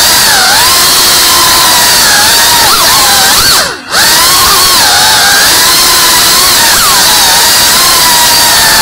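FPV quadcopter's brushless motors whining loudly, the pitch rising and falling with throttle. About four seconds in, the whine sweeps down and briefly almost cuts out as the throttle is chopped, then picks up again.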